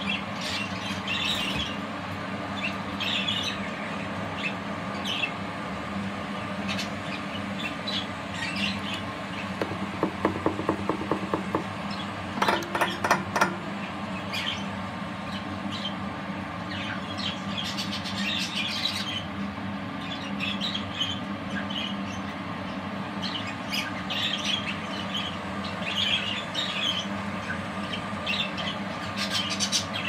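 Budgerigars chirping and chattering in short scattered calls over a steady hum, with two short runs of rapid clicking about ten and thirteen seconds in.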